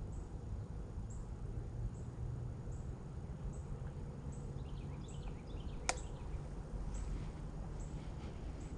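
Field ambience: a steady low rumble with faint high chirps repeating about once every 0.7 seconds and a few brief calls near the middle. A single sharp click about six seconds in is the loudest sound.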